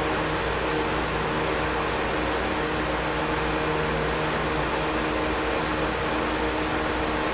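Steady room noise: an even hiss with a faint low hum, unchanging throughout, with no voices or movements standing out.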